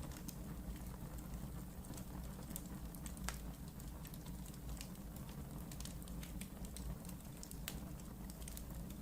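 Wood fire burning in a fireplace: a steady low rumble of flame with irregular crackles and snaps from the burning logs, two sharper pops about three seconds in and near the end.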